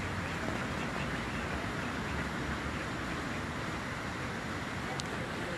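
Steady outdoor background rush, with no bird calls standing out, and one brief sharp click about five seconds in.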